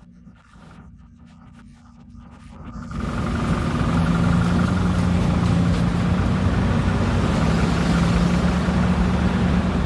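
A motor vehicle's engine running with a steady low hum under a loud rushing noise that comes in suddenly about three seconds in, after a quiet start.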